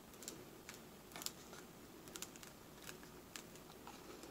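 Faint scattered clicks and taps of a model tail surface covered in iron-on film being handled in the fingers, its X-hinged surfaces moved back and forth.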